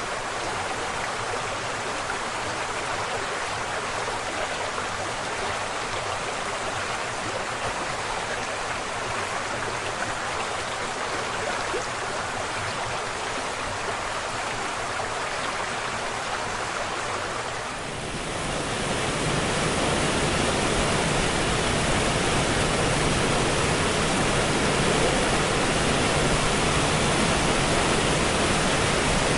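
Steady rushing of flowing water from a stream or waterfall. About two-thirds of the way through it changes suddenly to a louder, deeper, fuller rush of falling water.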